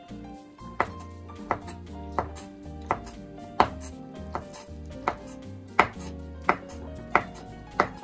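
Kitchen knife slicing shiitake mushrooms on a wooden cutting board: a steady knock of the blade reaching the board about every two-thirds of a second, some eleven strokes. Soft background music plays underneath.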